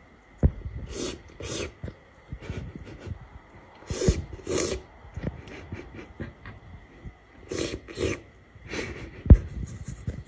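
A cat licking its fur while grooming: short wet smacking licks, often two in quick succession, with small tongue and mouth clicks between them and a sharper click near the end.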